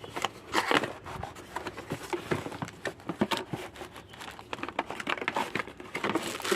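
Packaging being handled: irregular rustling and crinkling with small clicks and knocks, denser near the end.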